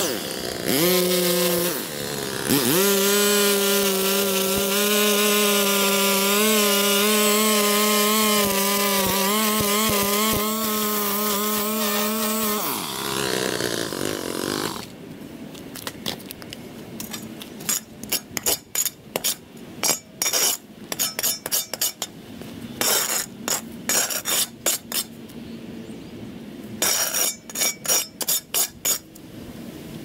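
A handheld power tool's small engine revs up, runs steadily at high speed for about ten seconds, then winds down. It is followed by a long run of irregular sharp clicks and snaps.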